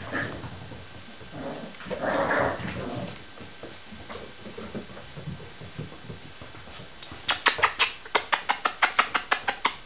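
Six-week-old working cocker spaniel puppies whimpering and yipping as they play, with a fast, regular run of about twenty sharp, high yips from about seven seconds in, the loudest part.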